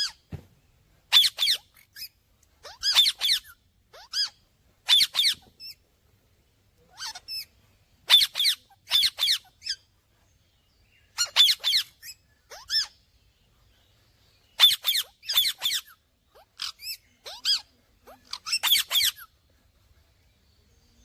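Indian ringneck parakeet calling in shrill chirps and squawks, each a quick cluster of a few high, sliding notes, repeated every second or two with a few short pauses.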